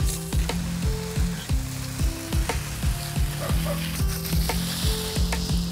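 Water jet from a garden hose spray nozzle hissing steadily as it sprays into a hedge, over background music with a steady beat.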